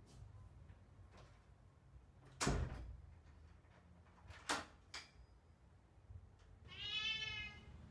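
A wooden door is pulled shut with a loud thud, followed by two sharp clicks about two seconds later. Near the end comes a short high pitched cry or squeak lasting under a second.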